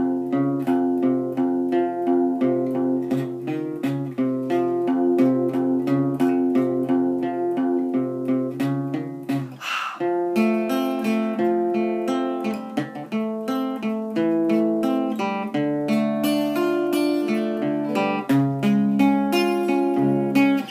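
Acoustic guitar playing chords in a steady rhythm, with a brief break about halfway through before the chords change.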